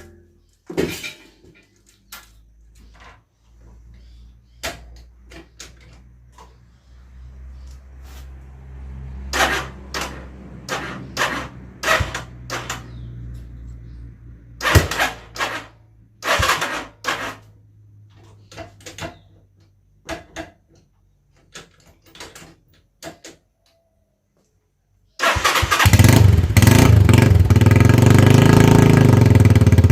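Scattered clicks and knocks, then about 25 seconds in the Zanella Patagonian Eagle 150's single-cylinder engine starts suddenly and runs loud and steady. Its exhaust has broken, rattling muffler baffles and a freshly drilled 8 mm hole in each pipe.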